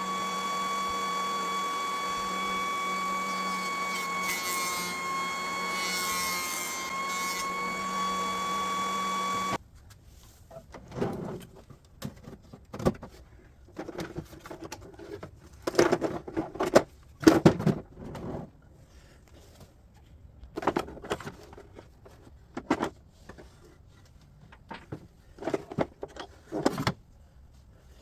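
A steady machine running with a high whine and a low hum, which cuts off suddenly about ten seconds in; then irregular knocks and clatter of maple boards being handled and set down on a bench.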